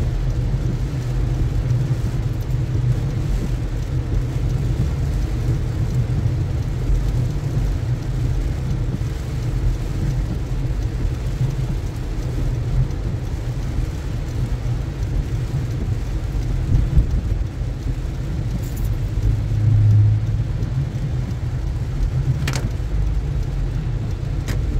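Inside a moving car's cabin in heavy rain: a steady low road rumble with the hiss of rain and tyres on a wet road. Two sharp clicks come near the end.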